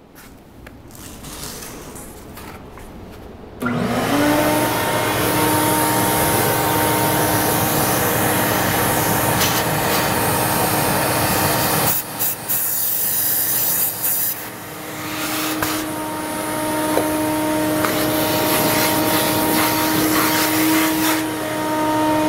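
A small vacuum switches on a few seconds in and runs steadily with a motor whine. Over it, a can of compressed air hisses in long blasts, blowing concrete drilling dust out of a drilled anchor hole.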